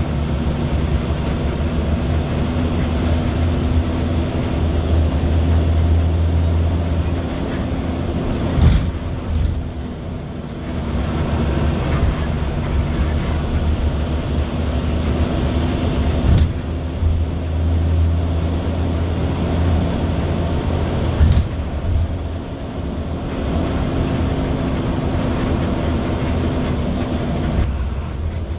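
Steady engine drone and road rumble of a moving road vehicle, with three sharp knocks spread through.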